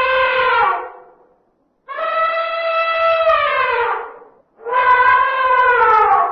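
Male African elephant trumpeting: loud, long brassy calls, each held for about two seconds and then sliding down in pitch. One call ends just under a second in, a second runs from about two seconds to past four, and a third starts just before five seconds and falls away near the end.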